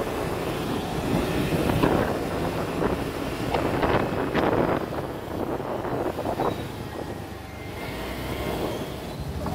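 Honda scooter riding along a town road: engine and tyre noise under wind buffeting the handlebar-mounted microphone in irregular gusts, easing a little near the end.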